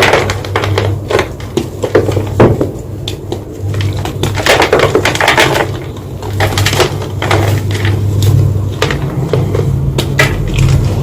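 White gym chalk being crunched: clusters of crisp crunches and crumbles with short pauses between them, over a steady low hum.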